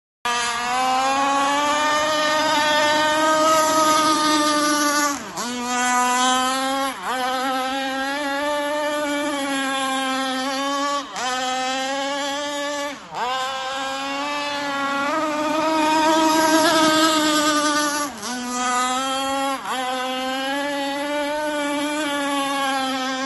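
Radio-controlled racing boat's motor running flat out with a high, steady drone. Six times its pitch briefly drops sharply and climbs back.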